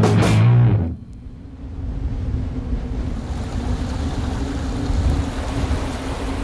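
Rock music cuts off about a second in, then a mountain stream rushes and gurgles over rocks in a steady run of water noise.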